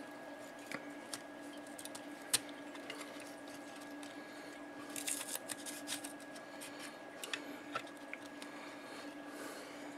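Blue painter's tape being pressed and smoothed by hand over a circuit board and its header pins: scattered light clicks and a rustling stretch about five seconds in, over a steady low hum.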